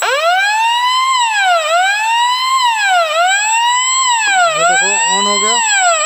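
Electronic fire alarm sounder wailing, starting suddenly and sweeping up and down in pitch about once every one and a half seconds, with a thin steady high tone above it. It means the smoke detector has sensed smoke and tripped the fire alarm panel into fire alarm.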